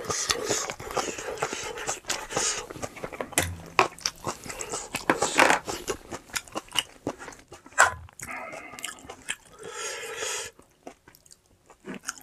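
A person biting and chewing crunchy food up close, with irregular crisp crunches.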